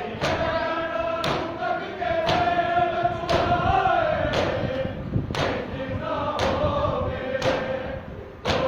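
Group of men chanting a Shia noha in unison, marked by loud rhythmic matam chest-beating about once a second.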